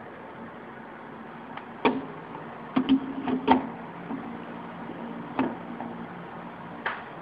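Sharp clicks and knocks of an espresso machine's portafilter handle being worked by hand, a cluster of them between about two and three and a half seconds in and single ones later, over a steady low hum.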